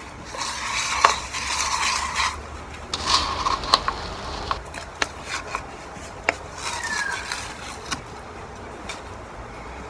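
Black-tinted wet concrete mix poured from a plastic cup and scraped out with a wooden paddle pop stick. A gritty scraping runs for about two seconds near the start, then comes a shorter scrape and scattered light clicks of the stick against the plastic cup.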